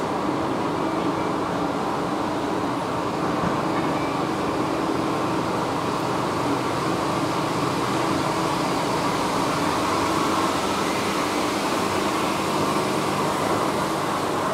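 Metro-station escalator running with a steady mechanical hum and a few faint constant tones.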